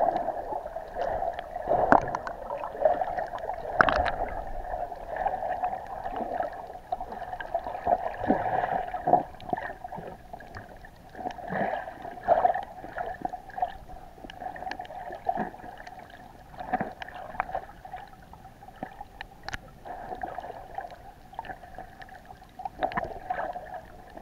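Muffled underwater water noise heard through a waterproof action-camera housing: sloshing and gurgling with irregular knocks and clicks against the case, louder in the first few seconds.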